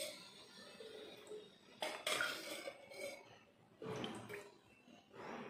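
Cooking oil poured in a thin stream into an empty heated enamel pot: a faint trickling pour, with a few short louder splashes or clinks against the pot about two and four seconds in.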